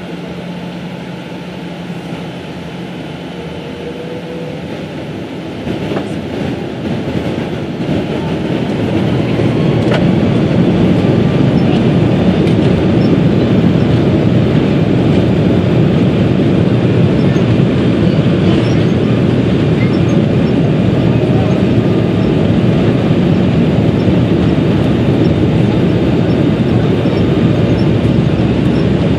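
Boeing 777-300's twin jet engines, heard from inside the cabin over the wing, spooling up to takeoff thrust: the sound grows louder from about six seconds in until about ten seconds in, then holds as a steady loud rush with the rumble of the takeoff roll.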